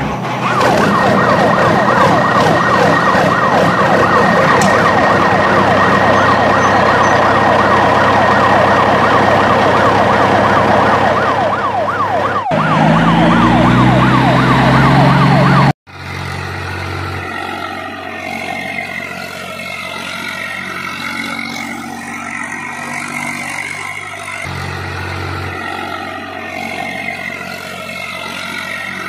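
Police siren wailing in a fast warble for about twelve seconds, then a lower revving sound with a rising sweep. After an abrupt cut, a quieter, steady vehicle engine sound runs on.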